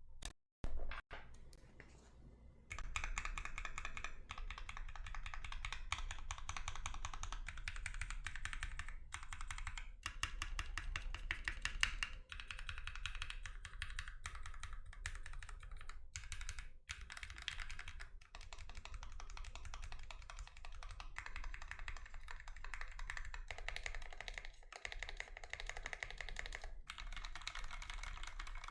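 Fast continuous typing on a Mechjunkies Maze64 60% tray-mount mechanical keyboard with no case foam, fitted with lubed and filmed SP-Star Meteor White switches: dense rapid key clacks with short pauses every few seconds. A single louder knock comes just under a second in, and the typing starts about three seconds in.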